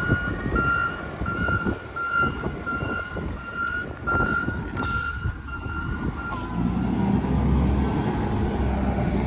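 Garbage truck's backup alarm beeping steadily for about the first four and a half seconds, over the truck's diesel engine. From about six and a half seconds in the engine's rumble grows louder.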